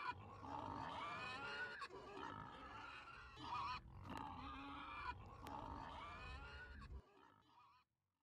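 Faint pig grunting and squealing, wavering calls that come and go every second or so, cutting off about seven seconds in.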